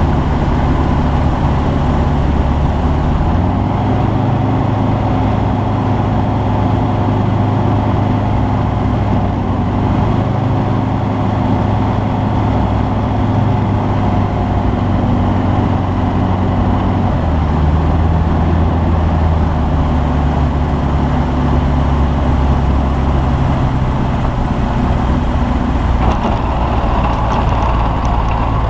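Rotax 912S four-cylinder boxer engine and propeller of a Skyranger Classic microlight running steadily. The engine note shifts to a new pitch about three seconds in and again about seventeen seconds in, as the throttle is changed.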